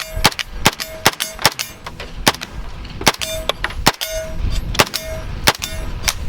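A 9mm submachine gun firing about a dozen single shots at an uneven pace, with a steel target ringing with a short, clear ping after several of the hits.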